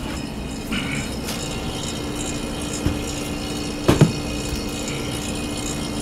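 Commercial refrigerator's condensing unit running: compressor and condenser fan giving a steady hum over an even whoosh, the compressor now starting and running on a replacement 3-in-1 start capacitor, relay and overload kit. A few light knocks near the middle.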